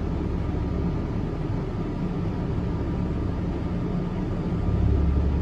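RV rooftop air conditioner running with a steady low hum from its fan. About four and a half seconds in, the hum grows louder as the compressor starts on a Micro Air EasyStart 364 soft starter and puts load on the paired Honda EU2000 inverter generators.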